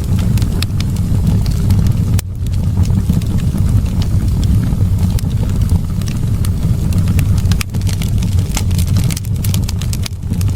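Wood fire burning in a fireplace: frequent crackles and pops over a steady low rumble, with a denser run of crackles near the end.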